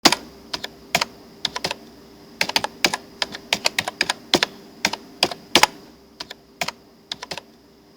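Computer keyboard typing: quick, irregular key clicks in short runs, over a faint steady hum.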